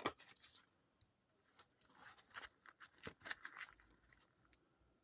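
Faint scratching and brushing of trading cards and paper being handled, with a sharp click at the start.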